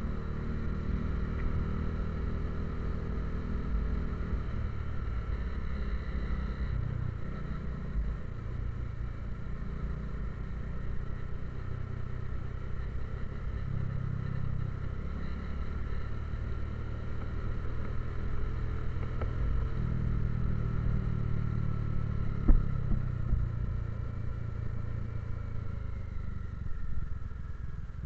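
Motorcycle engine running under way, heard from on the bike along with road and wind rumble, its note swelling and easing several times with the throttle. One sharp knock about three-quarters of the way through.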